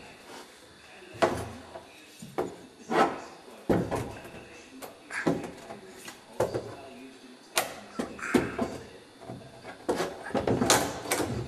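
Heavy finned metal unit knocking and clunking against the rim of a deck hatch as it is worked down into a boat's hull: about a dozen irregular bumps, with the sharpest a little after one second, at about three seconds, near the middle and near the end.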